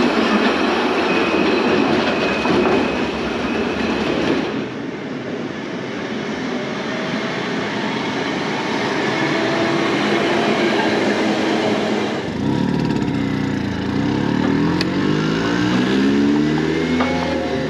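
A tram running on its rails with a steady rumbling clatter. About twelve seconds in this gives way to a Vespa scooter's engine pulling away, its pitch rising as it speeds up.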